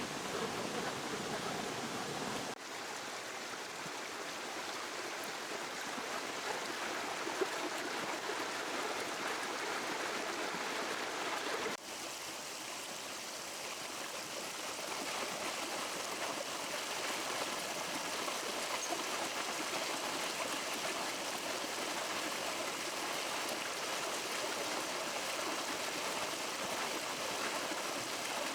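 River water flowing steadily, an even rushing noise, which shifts slightly in tone at two sudden breaks, about two and a half seconds in and again about twelve seconds in.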